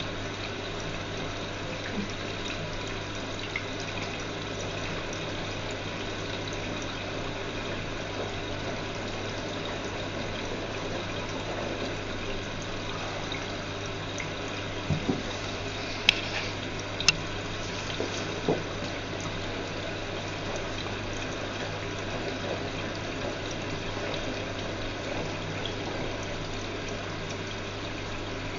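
Whirlpool washing machine running, with water flowing through it over a steady low hum. A few sharp clicks and knocks come about halfway through.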